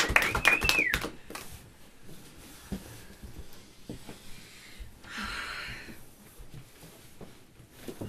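Audience clapping dying away in a small room, with a high wavering whistle that glides down and stops about a second in. Then a quiet room with scattered small knocks and a short soft hiss about halfway through.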